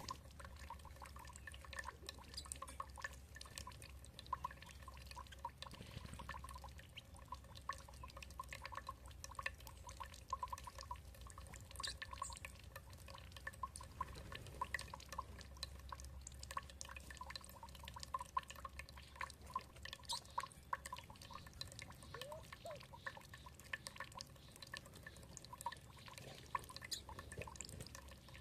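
Water trickling and dripping, a dense patter of small drops.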